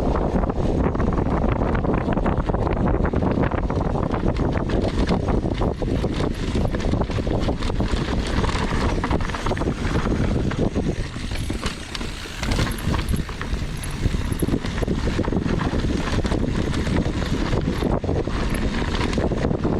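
Wind buffeting a mountain biker's camera microphone on a downhill run, over a steady rumble with frequent rattles and knocks from the bike on rough trail. It eases briefly about two-thirds of the way through.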